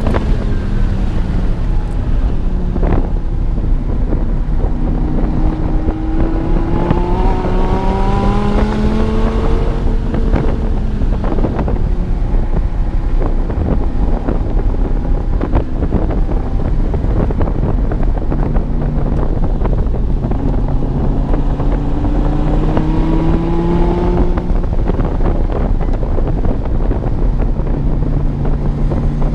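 Dodge Viper TA 2.0's 8.4-litre V10, fitted with headers and a tune, running hard on track: its pitch climbs under acceleration twice, falling away in between, over heavy wind and road noise.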